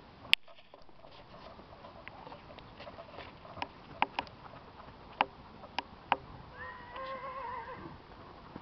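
A horse whinnying once, a wavering call of a little over a second about two-thirds of the way in, among scattered sharp knocks of hooves and tack.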